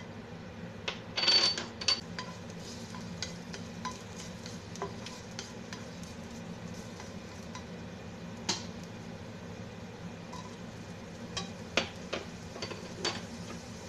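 Garlic sizzling in hot oil in a frying pan while a plastic spatula stirs it, scraping and clicking against the pan. There is a short loud burst about a second in, and a steady low hum runs underneath.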